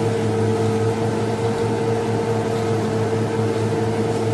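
Small electric motor of a homemade vacuum cleaner running steadily, giving an even hum with one strong mid-pitched tone.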